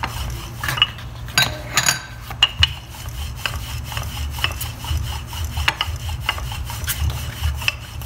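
Wooden rolling pin rolling out a potato-stuffed paratha dough on a tabletop: a steady low rubbing rumble with scattered light knocks as the pin is worked back and forth.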